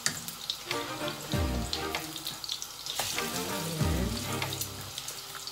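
Squash-and-shrimp fritters frying in hot oil in a pan, with a steady sizzle and a few taps and scrapes of a metal slotted spatula as a fritter is flipped. Background music plays along with it.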